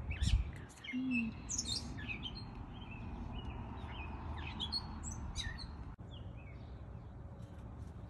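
Several small birds chirping and calling, many short chirps throughout, over a steady low rumble, with a low thump near the start.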